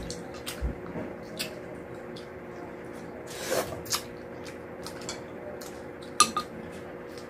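Close-up mouth sounds of eating with the hand: chewing and lip smacks on rice and fish, heard as scattered short clicks and wet noises, with a louder wet chew about three and a half seconds in. A sharp clink on a dish comes about six seconds in, over a faint steady hum.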